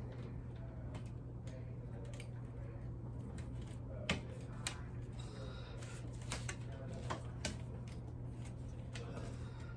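Scattered small clicks and knocks as the parts of a ring light and its stand are handled and fitted together, the sharpest about four seconds in.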